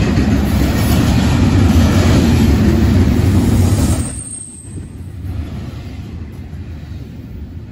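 Double-stack intermodal freight train cars rolling past, a loud steady rumble of steel wheels on rail. About four seconds in it drops suddenly and goes on quieter and duller.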